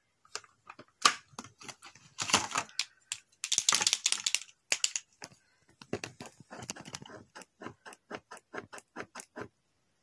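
Clicks and rustling of a plastic marker pack being handled. Then a liquid chalk marker clicks in a quick, even run, about four clicks a second, as its tip is pumped against paper to prime the ink.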